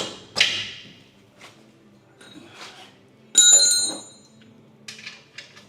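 A piece of metal strikes metal with a bright clang that rings and dies away in under a second, about halfway through. Lighter clicks and knocks from handling tools and parts come before and after it.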